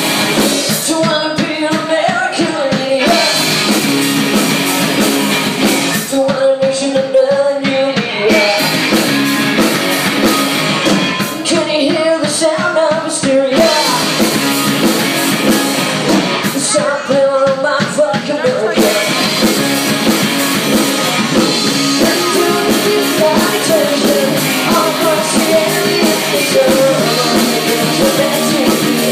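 Live rock band playing a song: electric guitars and drums, with a lead singer singing into a microphone.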